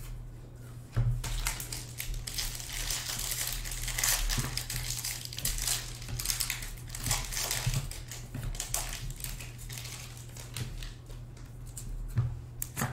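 Foil wrapper of a trading-card pack crinkling and crackling as hands open it and pull the cards out, a dense run of small crackles from about a second in until near the end.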